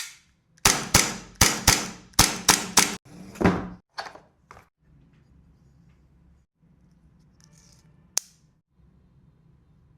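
Hi-Capa gas airsoft pistol firing about seven sharp shots in quick succession over about two seconds. A few fainter reports follow, then a single sharp click about eight seconds in.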